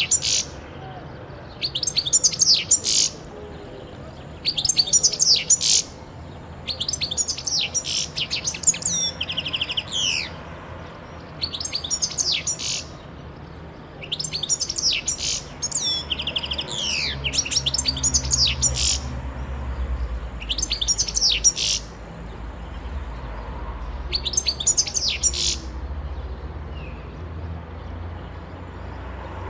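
Caged European goldfinch singing in short phrases of high, rapid notes, each about a second long and repeated every two to three seconds, two of them ending in a downward-sliding trill. A low rumble runs underneath in the second half.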